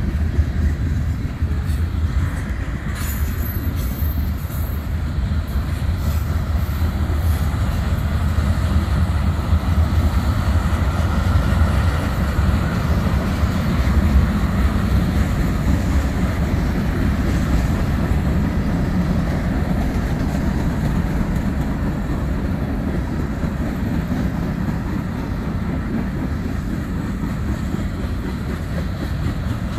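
Freight cars of a long mixed freight train rolling past at speed: a steady, loud rumble of steel wheels on the rails with a clattering hiss over it. Brief high-pitched squeals come a few seconds in.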